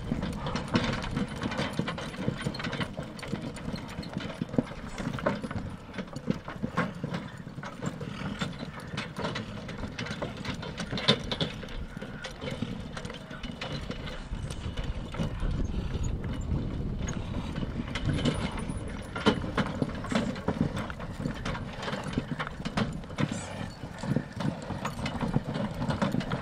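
Draft horses' hooves clip-clopping at a steady walk, with an irregular mechanical clatter alongside.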